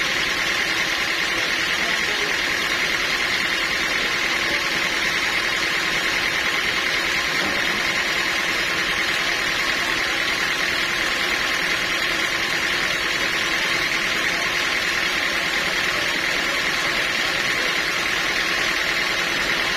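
Sawmill machinery running steadily: an even, continuous machine noise with a steady high whine that does not change.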